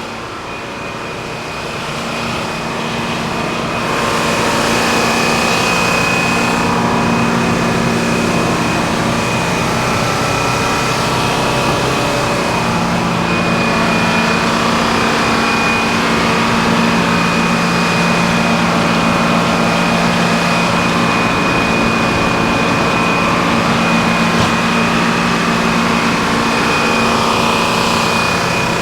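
Sawmill running under load as it saws through a log: a steady engine note with a high, even whine over it, building up over the first few seconds and then holding steady.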